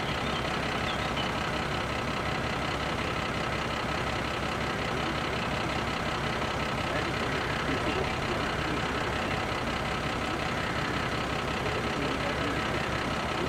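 Parked Mercedes pigeon-transport truck idling, a steady unchanging engine run.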